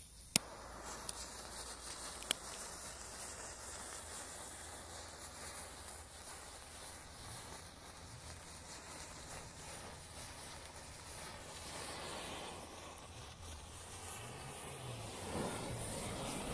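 Burning matches hissing steadily, with two sharp snaps in the first few seconds.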